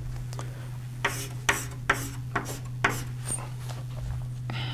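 Writing on a lecture board: a run of about seven short rubbing strokes, irregularly spaced, over a steady low hum.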